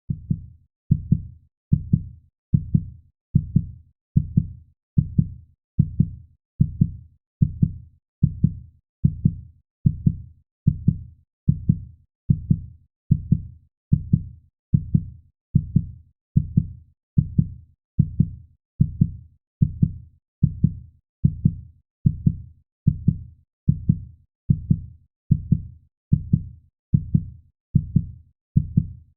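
Heartbeat sound effect: low double 'lub-dub' beats in a steady, even rhythm, a little more than one beat a second.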